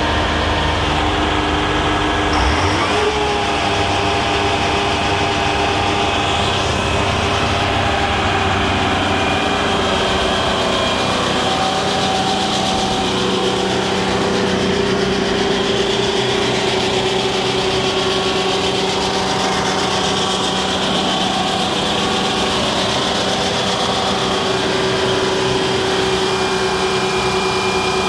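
Detroit Diesel 8V-71N two-stroke V8 diesel running steadily on a triplex pump skid. About three seconds in its speed picks up, then holds at around 1,700 rpm.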